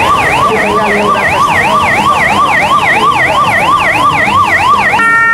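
Electronic emergency-vehicle siren in a fast yelp, its pitch sweeping up and down about four times a second, switching to steady held tones right at the end.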